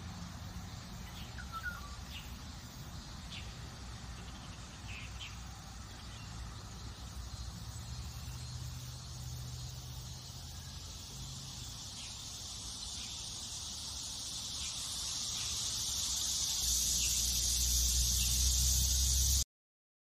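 Outdoor ambience among trees: a few short bird chirps over a steady high hiss and a low rumble, both growing louder over the last few seconds. The sound cuts off suddenly just before the end.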